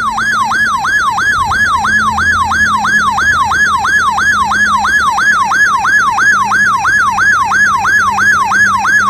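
RadioShack 12-996 weather radio sounding its electronic siren alarm, a loud, fast wail repeating about three times a second. The alarm has been set off by the weekly test of NOAA Weather Radio's warning alarm.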